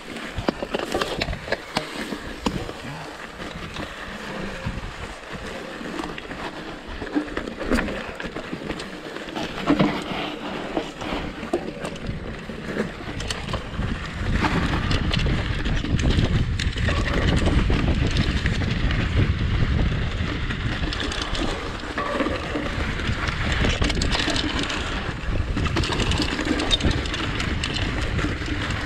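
Mountain bike riding down a dirt trail: tyres rolling over dirt and pine needles, and the bike rattling and knocking over bumps and roots. Wind rumbles on the microphone, louder from about halfway through as the bike picks up speed.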